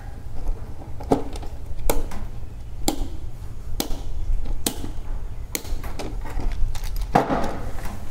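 Sharp plastic clicks and knocks, about one a second, from hands working wire links into a row of plastic miniature circuit breakers on a wooden table, over a low steady hum.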